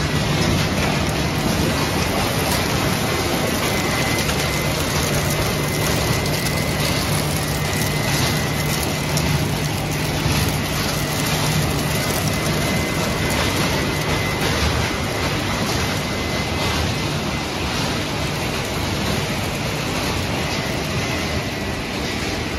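Refrigerator recycling line machinery running steadily in the plant: a constant low hum under a dense, even clatter, with a faint high whine that fades near the end.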